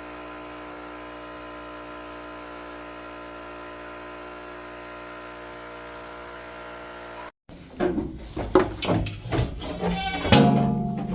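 A steady machine-like hum holding several fixed pitches at once, cut off abruptly about seven seconds in. It is followed by background music with plucked guitar notes.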